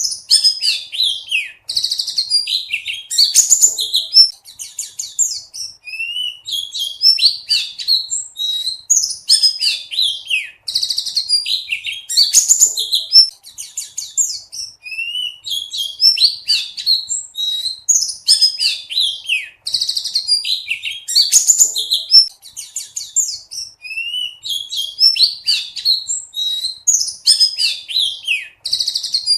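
Buxtoni white-eye (pleci) singing non-stop: rapid high chirps, twitters and short trills. The same run of phrases comes back about every nine seconds, as in a looped recording.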